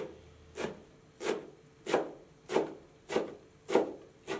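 Large kitchen knife chopping a pile of green herbs on a wooden board: eight evenly spaced strokes of the blade through the herbs against the wood, about one and a half a second, each a short scrape.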